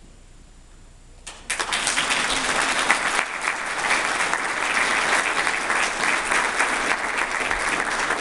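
Audience applauding, starting suddenly about a second and a half in after a brief quiet, then steady clapping.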